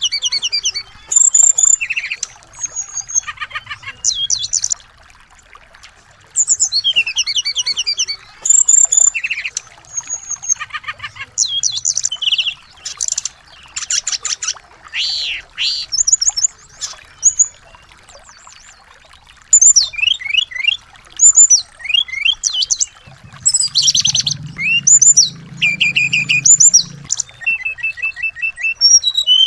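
Small songbirds singing in bursts of quick, high chirps and rapid trills, phrase after phrase with short pauses between, over a faint steady hiss.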